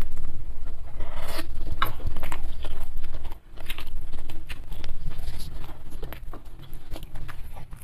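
Close-miked wet chewing of a mouthful of sardine and instant noodles, with irregular lip smacks and small mouth clicks.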